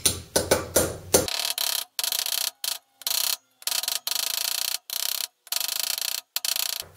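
Ball-pein hammer blows on the old outer bearing race, used as a drift to drive the new outer race into a T25/T3 front hub: about five quick, ringing metallic strikes in the first second. Then a steady, bright buzz, chopped into short stretches by sudden cut-outs, until the strikes start again right at the end.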